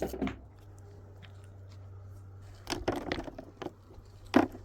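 Short knocks and crunching scrapes of stones and mud being handled while a stone fireplace is built, coming in a few brief clusters over a low steady hum.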